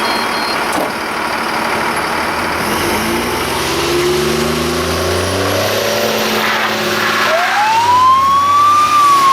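Steady rushing wind and road noise. Around three seconds in, a motor vehicle engine goes by, its pitch sliding. Near the end a siren winds up in a rising wail and then begins to fall.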